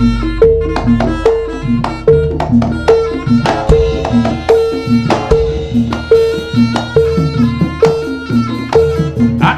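Javanese gamelan accompaniment for a jaranan senterewe dance: drums with a steady, repeating pattern of two alternating pitched gong notes, one high and one low.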